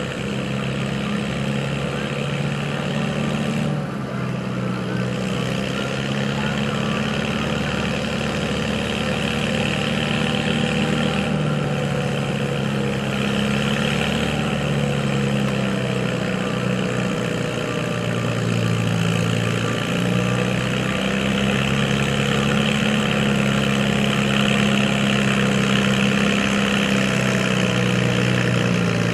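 Farm tractor diesel engine running steadily, its pitch shifting up and down a few times.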